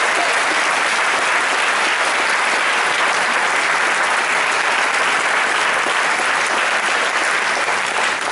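Large audience applauding, a dense steady clapping throughout.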